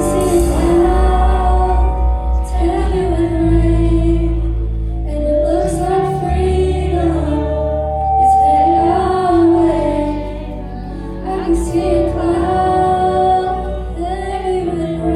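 Live worship music: a singer holding long, wavering sung phrases over a band with sustained bass notes.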